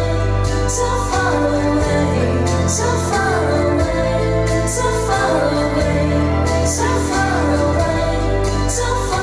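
Slow waltz music playing, with a sung melody over sustained chords.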